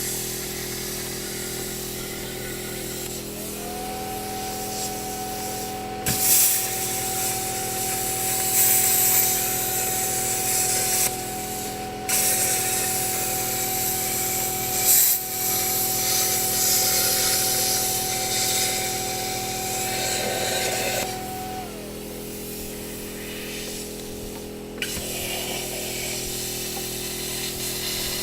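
Plasma cutter cutting through the steel shell of a scrap AC compressor: a loud steady hiss of the arc and air jet, broken by a few brief pauses. A steady hum runs underneath, and a steady whine rises a few seconds in and falls away about three quarters of the way through.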